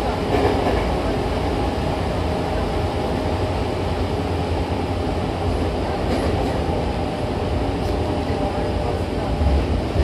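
Hankyu Takarazuka Line commuter train running between stations, heard from inside the car at the doors: a steady rumble of wheels on rail and traction motors. A few short clicks come through about six seconds in, and the rumble grows louder near the end.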